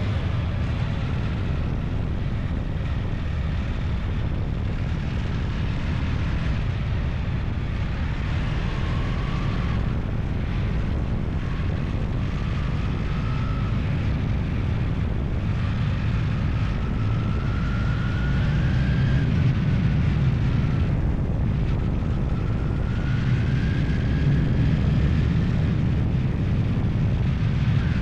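A vehicle engine running under way, with a heavy low rumble and a fainter whine that rises in pitch several times, as when accelerating; the rumble gets a little louder about two-thirds of the way through.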